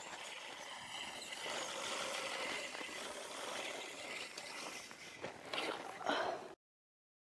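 Steady outdoor background noise with no clear single source, and a couple of short sounds about five and a half to six seconds in. The sound then cuts off abruptly to dead silence near the end.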